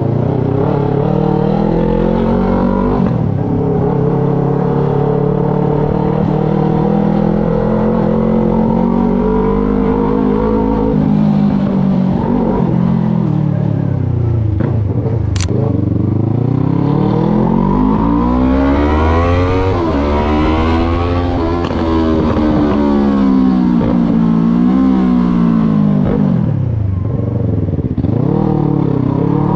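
Yamaha MT-03 motorcycle engine under way. Its pitch holds steady at first, then falls and rises several times as the bike slows and speeds up. One sharp click comes about halfway through.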